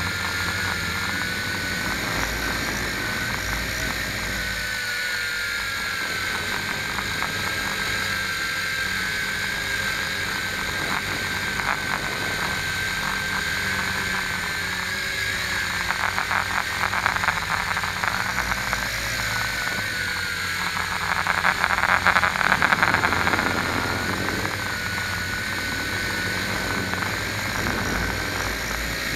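Electric motors and propellers of a small camera drone, heard through its onboard camera: a steady high whine that wavers slightly in pitch, with a buzzy rattle. It grows louder twice, around 16 and 22 seconds in.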